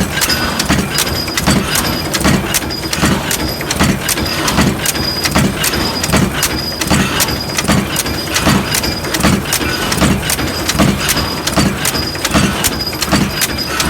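Forging machine running, with an even rhythm of knocks a little over once a second over a steady mechanical din, with sharper clicks in between.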